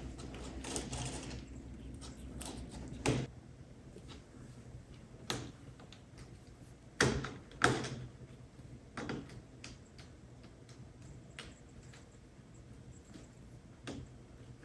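Kittens at play knocking small objects about: scattered light taps and clicks with a few sharper knocks, the loudest about three, five, seven and seven and a half seconds in. A low hum underneath stops about three seconds in.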